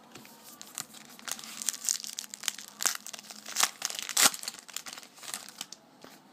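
Foil wrapper of a Topps Magic football card pack being torn open and crinkled by hand: a run of sharp crackles and rips, loudest in the middle, dying away near the end.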